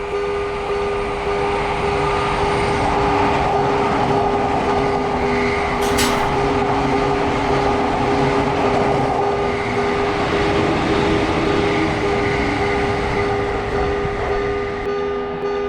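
Japanese level-crossing warning bell ringing in a steady repeating rhythm while a train passes, with a sharp click about six seconds in.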